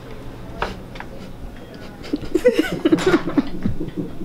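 A hospital room door's lever handle clicks as the door is pushed open, then people laugh and murmur briefly, starting about two seconds in.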